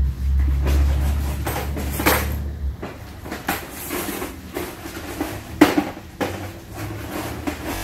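Irregular knocks, clicks and rustles from handling flat tubing on a plastic floor tarp; the loudest knock comes a little past halfway. A low steady hum runs underneath and stops about two and a half seconds in.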